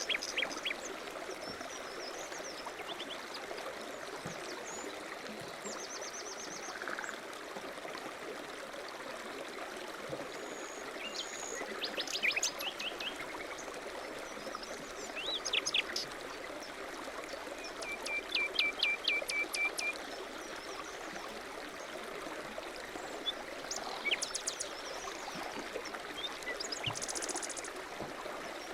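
Small birds chirping and calling in short high notes, with one quick repeated trill near the middle, over a steady rush of running water.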